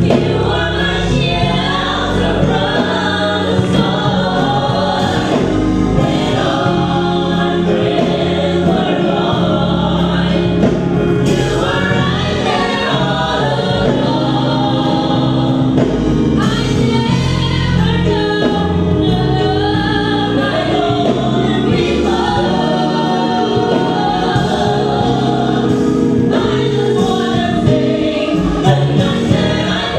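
Gospel vocal group of men and women singing together in harmony through handheld microphones, a continuous stretch of a love-song medley.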